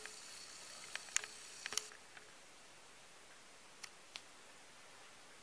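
Handling noise from a camera phone and a garment being moved: a quick run of light clicks with faint rustling in the first two seconds, then low hiss with two faint clicks later on.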